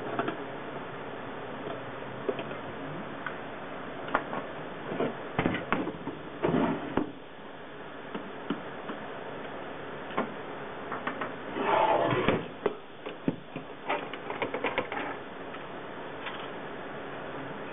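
Scattered clicks, taps and metallic scrapes of a screwdriver undoing small Torx screws and of the sheet-steel cover of a server blower housing being handled, with a longer, louder scrape about twelve seconds in. A steady hiss lies underneath.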